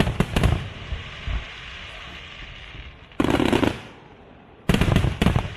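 Aerial fireworks display: volleys of loud, sharp bangs. One volley at the start, another about three seconds in and a third near the end, with a quieter background between them.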